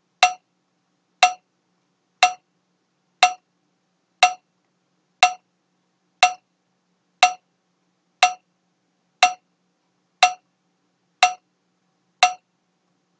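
Metronome ticking at 60 beats per minute: one short pitched click each second, keeping the count for a six-second isometric hold and a six-second slow lowering against the band.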